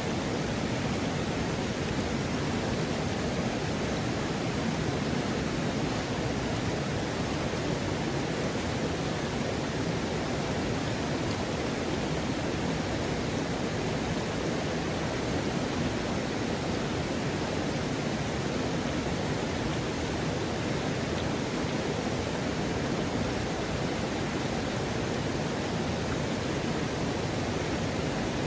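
Waterfall pouring into a river: a steady, even rush of falling water.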